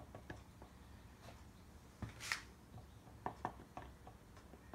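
Faint handling sounds of a squeeze bottle of assembly lube being worked over an engine block: scattered light clicks and taps, with one short hiss a little past two seconds in and a few sharper ticks a second later.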